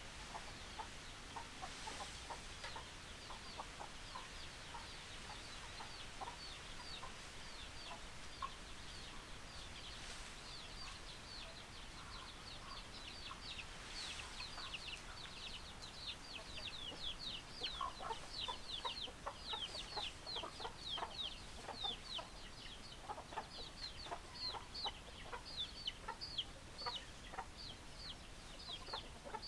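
A flock of chickens clucking, with a continuous run of short, high, falling calls that becomes much busier and louder about halfway through, mixed with scattered lower clucks.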